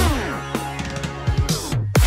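Electronic dance music: the kick drum drops out for a breakdown, with falling pitch glides, and the sound cuts off briefly near the end.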